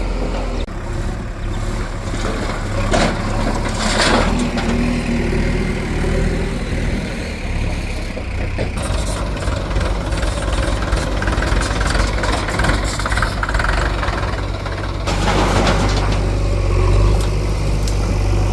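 Diesel engine of a backhoe loader running steadily with a low rumble, with two louder, noisier surges, about four seconds in and again near the end.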